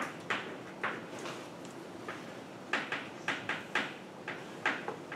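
Chalk writing on a blackboard: about a dozen short, irregular taps and scratches as symbols are written.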